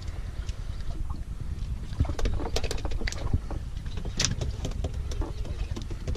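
Steady low rumble of a fishing boat at sea, with scattered sharp clicks and knocks from handling on board, the loudest about four seconds in.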